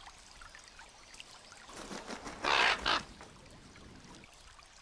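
Young raven giving one harsh, noisy squawk in two quick parts about halfway through, over the faint trickle of running water.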